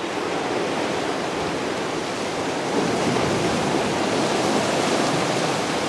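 Ocean surf breaking and washing against shoreline rocks, a steady rushing noise that swells slightly about three seconds in.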